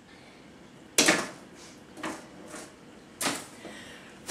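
Kitchen clatter: a handful of sharp knocks and clunks of utensils and a mixing bowl on the bench while pancake batter is made, the loudest about a second in.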